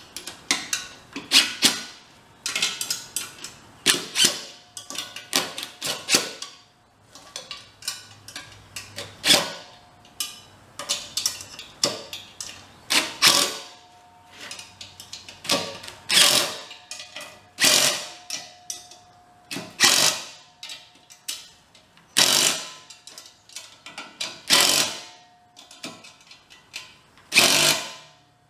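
Cordless drill-driver run in many short bursts of under a second each, driving bolts down into a steel tank lid. Each pull of the trigger tightens the lid bolts a little further to pull the domed lid flat.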